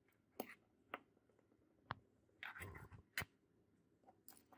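Small metal parts of a sunglasses frame and a precision screwdriver being handled and set down on a table: a few sharp clicks and taps, with a short scraping rustle in the middle.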